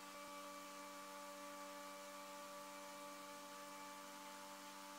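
Near silence: a faint, steady electrical hum with no other events.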